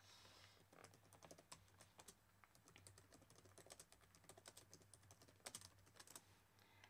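Faint, irregular clicking of typing on a computer keyboard, a quick run of keystrokes with short pauses, over a faint low hum.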